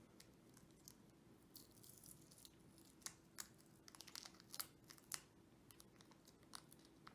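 Faint, scattered small clicks and scrapes of a plastic car key remote being handled and pried apart, busiest in the middle of the stretch.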